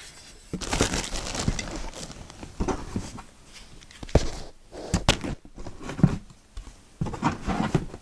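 Handling noise: rustling with a few sharp knocks as small objects are picked up and set down on a surface, the loudest knocks about four, five and six seconds in.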